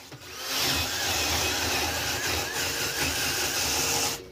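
Cordless drill spinning a wire wheel brush against a small steel brake self-adjuster bolt held in a vise, scouring rust and crust off it. The drill spins up a moment in, runs steadily with its pitch wavering under load, and stops abruptly near the end.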